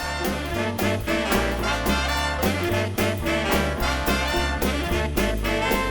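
Background swing music with brass: trumpets and trombones over a steady beat and walking bass.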